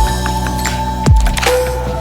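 Electronic background music: held synth tones over deep drum hits that drop sharply in pitch.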